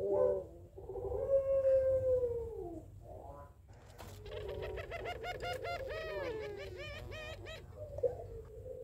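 Domestic collared dove of the puter pelung type cooing. A drawn-out coo falls in pitch about a second in, then from about four seconds a quick run of short rising, wavering notes lasts about three seconds.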